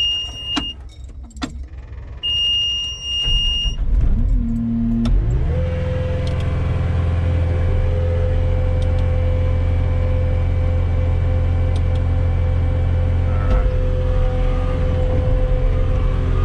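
Cat 259D compact track loader starting up: two warning beeps from the cab, then the diesel engine cranks, catches about five seconds in and runs steadily.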